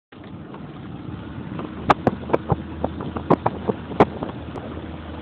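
Small motorboat engine running steadily, a low hum, with wind buffeting the microphone. Several sharp knocks come between about two and four seconds in.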